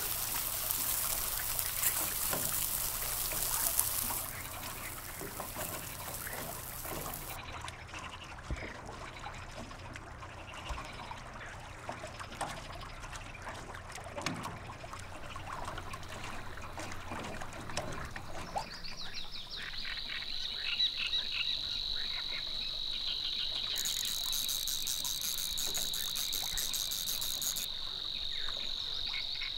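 Meat sizzling on a gas grill for the first few seconds, then a quieter stretch of scattered small clicks. From about two-thirds of the way in, an evening chorus of frogs and insects sets in as a steady, pulsing high trill, with a higher insect buzz joining for a few seconds near the end.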